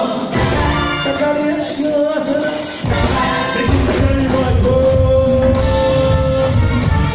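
Live band music with a singer, as in a stage musical; bass and drums come in about three seconds in, and a long held note follows a second or two later.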